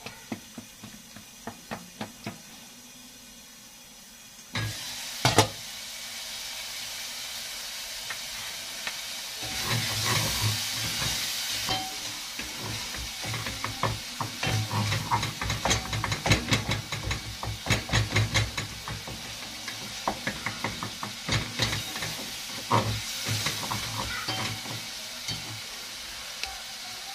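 A wooden spoon stirring and scraping food frying in a pot on a gas burner, with repeated knocks of the spoon against the pot over a steady sizzling hiss. A couple of sharp metal clanks, like a pot lid, come about five seconds in, just as the sizzle gets louder.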